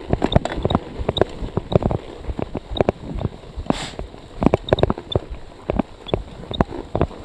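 Scott Speedster CX cyclocross bike rattling and knocking over rough, snow-covered ground, with uneven thumps several times a second. A brief hiss comes about four seconds in.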